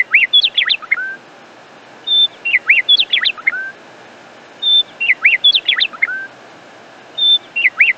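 Bird song: the same short phrase repeated about every two and a half seconds, a brief high note followed by quick rising and falling whistled sweeps, ending on a lower note, over a faint steady hiss.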